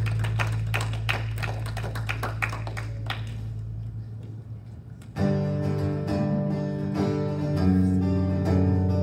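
Two guitars playing live worship music. A held low chord fades over the first few seconds under quick light strokes on the strings, then about five seconds in an acoustic guitar strums a fresh chord and keeps playing.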